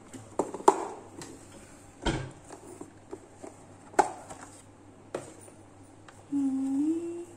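Kitchen drawer and plastic masala box being handled: a handful of sharp knocks and clicks, the loudest about a second in. Near the end, a short hummed 'mm' from a person.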